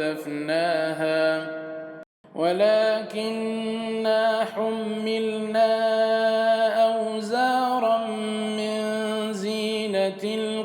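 A man's voice reciting the Quran in melodic murattal chant, drawing out long held notes that bend slowly in pitch. A brief pause for breath comes about two seconds in.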